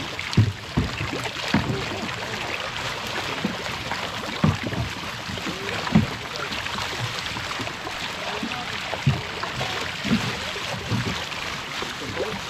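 Steady splashing and fizzing of water as a dense school of small sardines (tamban) thrashes at the surface inside a tightened fishing net, with a few dull low thumps.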